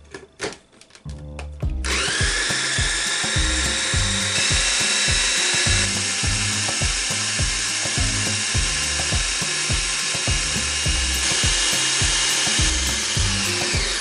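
AEG personal blender's motor starts about two seconds in, spins up quickly and runs steadily with a high whine as it purées tomatoes and onions. It winds down at the very end.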